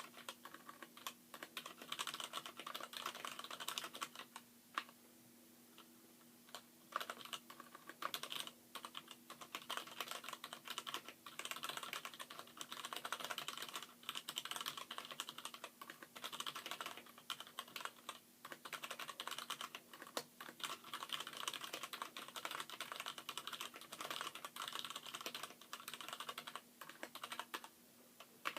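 Fast typing on a Poker X mechanical keyboard: its letter keys are Gateron Brown stems and springs in Cherry MX Black housings, the other keys stock Cherry MX Blacks. It is a dense, rapid clatter of keystrokes with a couple of brief pauses.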